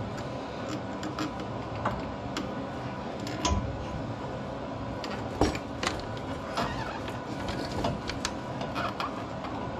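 Scattered light metal clicks and knocks as a new outer tie rod end's stud is worked by hand into a pickup's steering knuckle, with a louder knock about five and a half seconds in, over a steady background hum.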